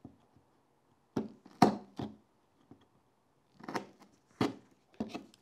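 A hand-held blade cutting and scraping into thin strips of wood, in about six short strokes spaced irregularly.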